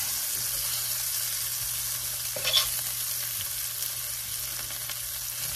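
Flour-dredged pheasant pieces sizzling steadily as they brown in hot oil in a stainless steel sauté pan, with a single sharp clink of metal tongs on the pan about two and a half seconds in.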